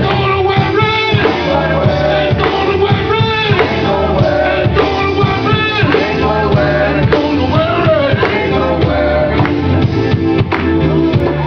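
Gospel singers and band performing live: voices singing over a steady bass line and drum beat.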